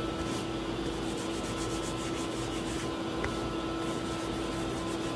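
Paper towel rubbed back and forth along a wooden ash gunstock, wiping on solvent to wet the grain, in runs of quick scrubbing strokes. A steady background hum runs underneath.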